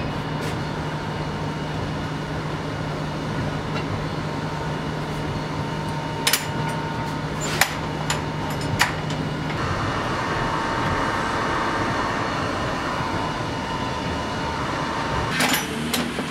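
Sharp metallic clicks and knocks as the valve handwheels on an electric heat-treating oven are worked, over a steady low hum. About ten seconds in the hum stops and a steady hiss sets in for about six seconds, ending with a few more clicks.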